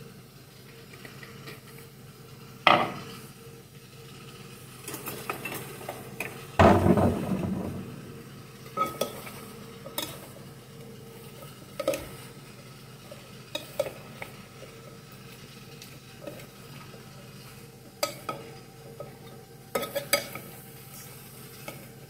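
Salad being tossed in a glass bowl with a utensil: scattered knocks and clinks of the utensil against the glass, with a sharp knock about three seconds in and a longer, louder clatter around seven seconds in.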